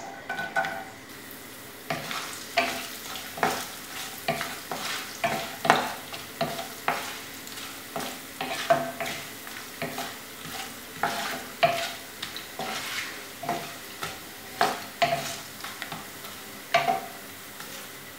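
Coconut pieces tipped into hot oil in a non-stick kadai, then stirred with a wooden spatula: sharp scraping and tapping strokes about twice a second over a steady sizzle of frying.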